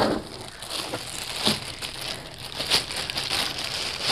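Clear plastic wrapping crinkling as it is handled and pulled open, irregular rustling with a few sharper crackles.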